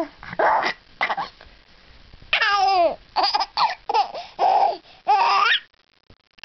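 Baby laughing in a string of short, high, wavering bursts, the longest about two seconds in, falling quiet near the end.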